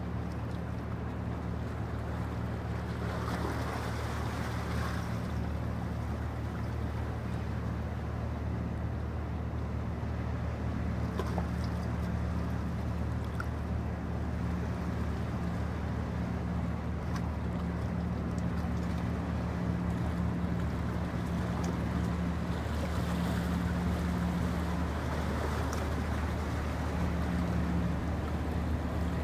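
Diesel engines of an offshore supply vessel running steadily as it passes close by. They make a low, even drone that grows slightly louder as the ship nears, over a wash of water and wind noise.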